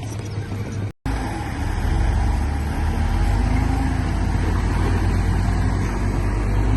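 Heavy diesel engine of earthmoving equipment running steadily, with a deep low rumble. The sound cuts out completely for a split second about a second in, then carries on as before.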